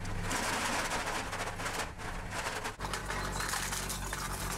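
Homemade electric can shredder chewing through aluminium beer cans: a dense crackling crunch full of sharp ticks over a low motor hum.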